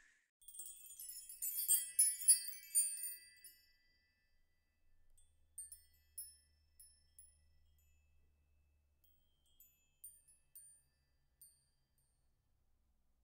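High tinkling chimes: a quick cascade of bell-like notes over the first few seconds, then quieter single chime notes scattered every second or so.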